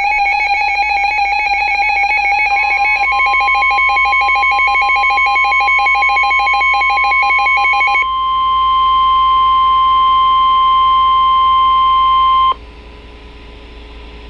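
Emergency alert warning tones. A trilling, warbling electronic tone is joined about 2.5 s in by a steady single-pitch alarm tone, which holds alone from about 8 s. That tone cuts off sharply about 12.5 s in, leaving a faint steady hum. The steady tone is the kind that signals a severe weather warning before the announcement.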